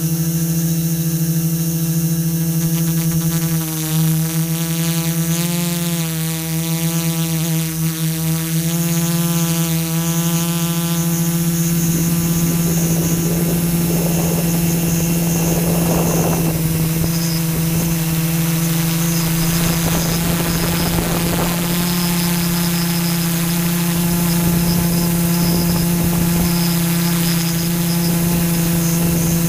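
Camera drone's motors and propellers whining steadily in flight. The pitch wavers during the first ten seconds or so as the motors change speed, then holds steady, with some rushing noise in the middle.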